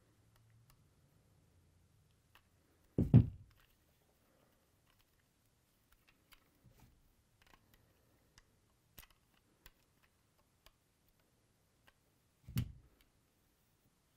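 Scattered small plastic clicks and ticks as a screwdriver pries at the clipped-together hard plastic of a vintage G.I. Joe Cobra F.A.N.G. toy helicopter, with two dull thumps, about three seconds in and near the end.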